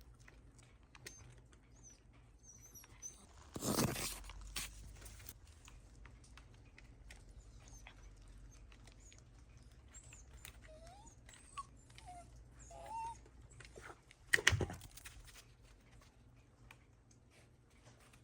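A Shiba Inu whimpering in a few short, faint squeaky cries, with light clicking and pattering around it. Two brief, louder rustling bursts come about 4 seconds in and again near the end.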